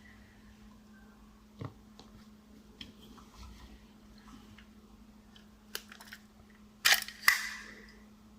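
Light clicks and taps from handling a 1:50 die-cast model low-loader trailer, with two sharper clacks about seven seconds in that ring briefly.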